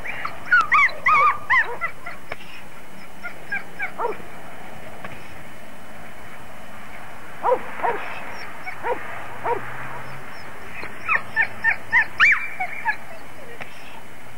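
Dogs barking in several short volleys, about four bouts, the busiest at the start and near the end.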